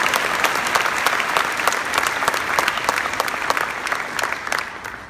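Congregation applauding, many hands clapping, the clapping dying away near the end.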